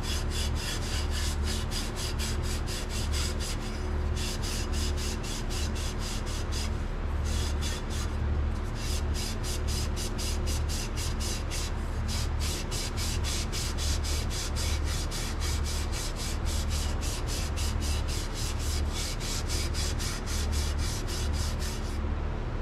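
A green Scotch-Brite pad scuffing a 321 stainless steel header tube as the tube is twisted back and forth inside it, in a steady run of quick rubbing strokes. The pad is taking the tack-weld discoloration and marks off the tube to prep it for welding.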